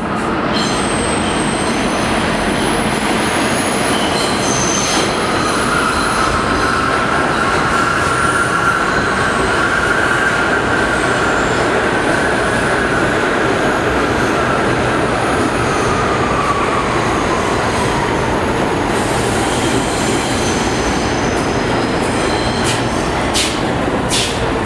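A New York City Subway train of R62 cars pulling into a station: a loud, steady rumble of steel wheels on rail with high wheel squeal. A single tone falls in pitch through the second half as the train slows, and a few sharp clicks come near the end.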